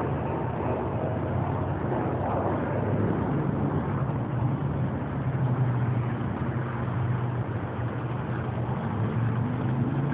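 Steady low rumble of motor vehicles, like traffic running on a nearby road, with no clear start or stop.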